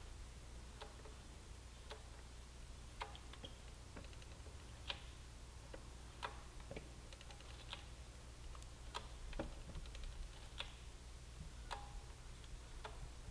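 Faint metallic clicks and taps, about a dozen at irregular intervals, from a box-end wrench opening and closing the bleeder screw on a 2012 Yamaha YZF-R6's rear brake caliper during brake bleeding. A steady low hum runs underneath.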